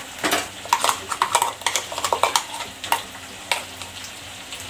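A steel spoon clinks and scrapes against a metal pot and ladle as ground masala paste is scraped into hot oil, over a steady sizzle of frying masala. A quick run of clinks and knocks lasts about three and a half seconds, then only the sizzle goes on.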